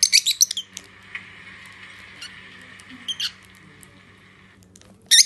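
Lovebirds giving shrill, squeaky chirps in short quick flurries: one at the start, another about three seconds in, and a third near the end, with faint clicks between.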